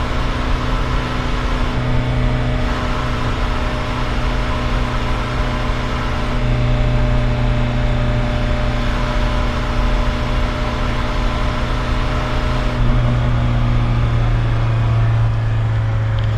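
VW T3's JX 1.6-litre four-cylinder turbodiesel engine running steadily, its low drone swelling slightly a few times. The owner hears a strange noise in it that he cannot place.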